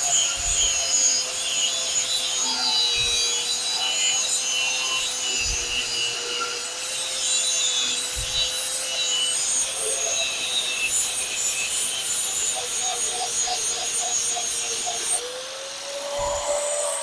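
Electric abrasive power tool running with a steady motor whine while grinding the steel knife blank, a continuous rasping scrape over the hum. The motor pitch rises slightly near the end.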